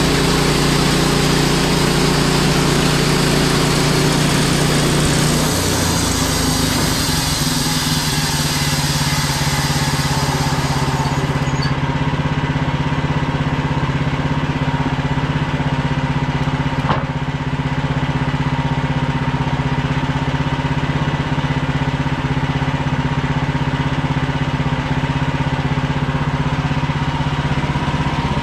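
An engine running steadily with its note unchanging, apart from a shift in its low tone about five seconds in. A high hiss over it stops about twelve seconds in.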